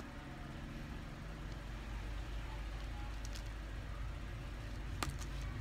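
Small plastic clicks as minifigure parts are fitted together, the sharpest about five seconds in, over a steady low mechanical rumble.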